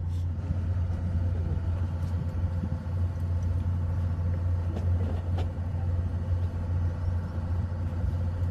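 Steady low drone of a fishing boat's engine running, with a few faint clicks about five seconds in.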